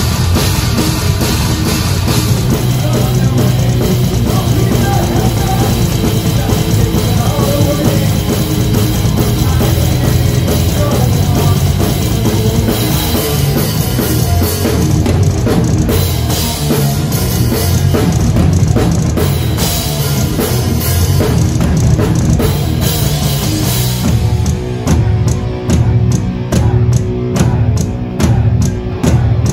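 Heavy metal band playing live, with drum kit and bass drum prominent over electric guitars and bass. About twenty-four seconds in, the band switches to short, chopped hits with brief gaps between them.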